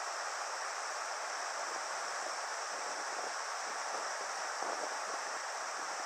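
Steady rush of mountain river water flowing over a riffle.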